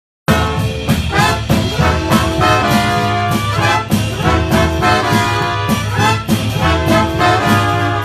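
A big band playing a swing tune, with the trombone section loudest and trumpets playing alongside, over a steady beat. The music cuts in suddenly mid-tune.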